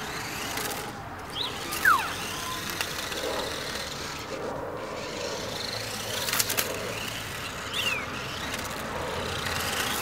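Parrot Jumping Sumo robot driving and spinning on asphalt: a steady running noise from its small electric wheel motors and tyres, broken by a few short squeals that fall quickly in pitch and a couple of sharp clicks.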